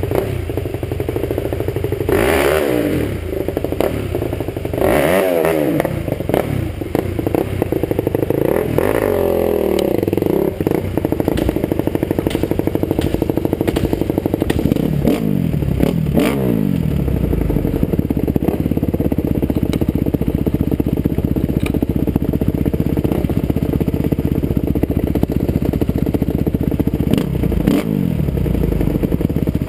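Dirt bike engine being ridden on a rough trail, its pitch rising and falling repeatedly with the throttle, with scattered clattering knocks from the bike over the bumps.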